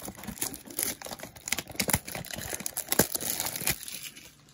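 Crinkling and tearing of packaging as a 2024 Topps Chrome baseball blaster box of trading cards is opened, in a dense run of irregular crackles that dies down near the end.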